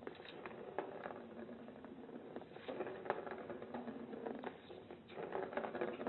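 A small plastic ball rolling and rattling around the track of a circular cat track toy as a cat bats at it, with many light, irregular clicks.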